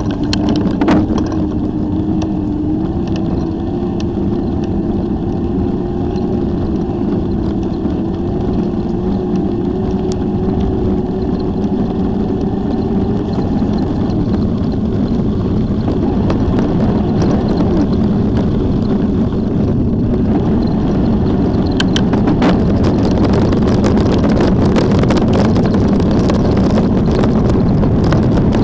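Steady wind buffeting on a moving microphone over a low rumble. A faint hum slowly rises in pitch over the first half, then fades out about halfway through.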